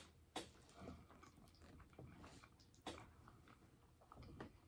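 Faint close-up chewing of soft food with the mouth closed, with a few sharp wet mouth clicks: one right at the start, one just after it, and another about three seconds in.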